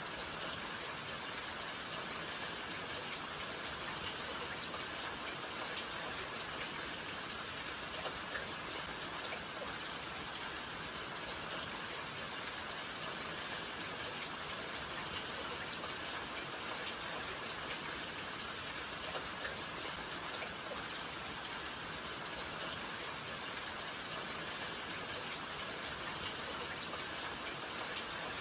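Steady rain falling, a continuous patter of drops with faint scattered ticks of individual drops landing on surfaces.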